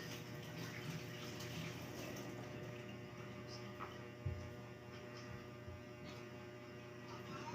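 A faint, steady low electrical hum, with a few small ticks and a soft low thump about four seconds in.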